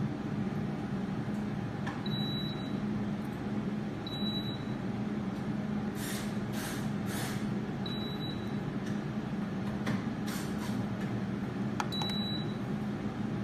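Lenoxx AF1200 air fryer oven running with a steady fan hum, its control panel giving four short high beeps as buttons are pressed, with a few brief rustles in between.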